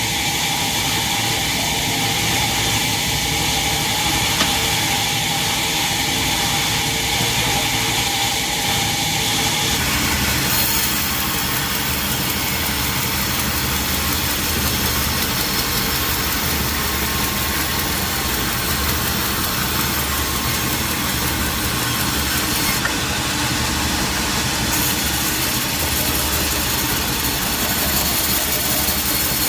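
Sawmill machinery running steadily with an engine-like drone. About ten seconds in, the sound changes abruptly: a steady whine drops out and a broader, rougher noise takes over.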